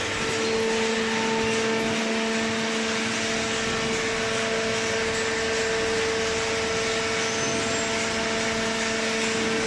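Vertical hydraulic baler running, its motor-driven hydraulic pump giving a steady hum with a constant tone over a hiss.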